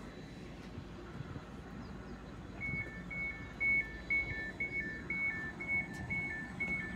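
Train door warning alarm sounding about three seconds in: a beep alternating between a higher and a slightly lower tone, about two pairs a second, over the low hum of the train standing at the platform.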